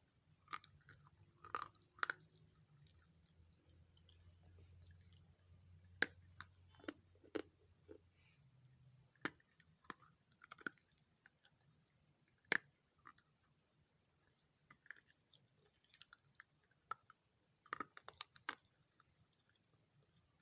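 A person biting and chewing hard lumps of multani mitti (Fuller's earth clay), giving irregular sharp crunches and clicks with quieter chewing between them.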